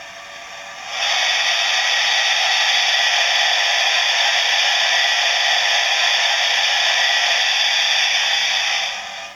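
Steam-hiss sound effect of the cylinder drain cocks, played through the small onboard speaker of a Hornby TTS sound-fitted model of the BR Standard 8P 4-6-2 Duke of Gloucester. It starts as a soft hiss, swells to a loud, steady hiss about a second in, and cuts off near the end. It sounds thin, with no bass.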